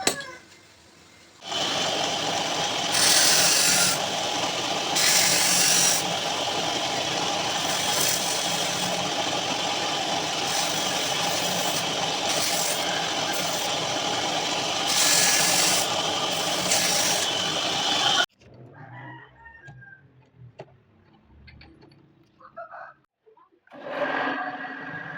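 An electric power tool runs steadily while machining a metal part, with several louder, harsher surges as the cutting bites. It cuts off suddenly about 18 seconds in and is followed by faint scattered knocks; a machine starts again near the end.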